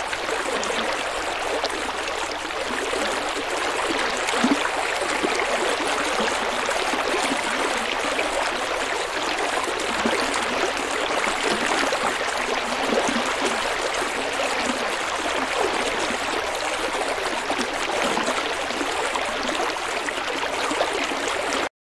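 Steady babbling and trickling of moving water, like a stream, that cuts off suddenly at the very end.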